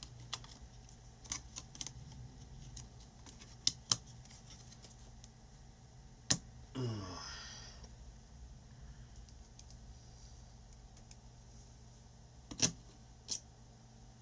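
Sharp clicks and taps of plastic laptop parts and small tools being handled as the hinge assembly is fitted back into an HP 15 laptop case. The loudest clicks come about 6 s in and twice near the end, with a short falling tone just before 7 s over a steady low hum.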